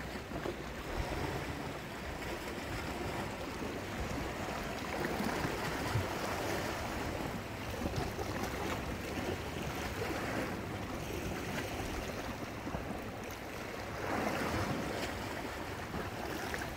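Seawater washing and surging, swelling and easing a few times like waves moving over rocks.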